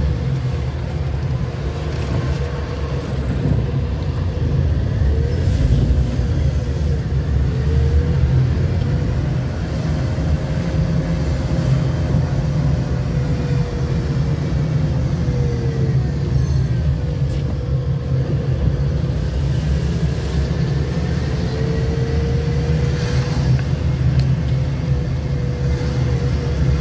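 Steady low rumble of a car driving on a road, with a faint whine that rises and falls in pitch several times as the speed changes.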